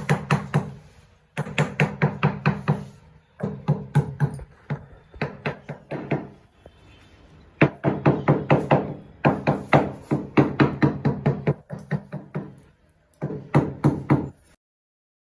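Wooden-handled hammer tapping a newly laid floor tile to bed it into the mortar, in quick runs of ringing knocks about five or six a second with short pauses between the runs. The tapping cuts off abruptly near the end.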